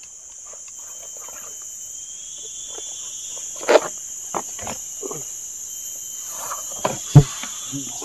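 A steady, high-pitched insect drone of tropical forest, with faint chirping calls over it. Over it come soft rustles and knocks of camping gear being handled, a rope and bag being packed, with two sharper knocks, one near the middle and one near the end.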